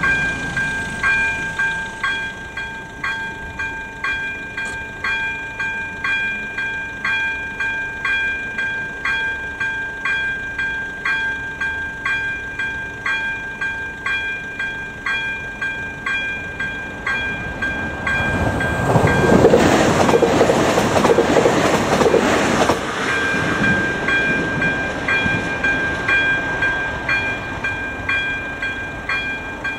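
Level-crossing warning bell ringing in a steady repeating rhythm. About two-thirds of the way through, a short train passes over the crossing for about four seconds, and its rumble and wheel noise drown the bell.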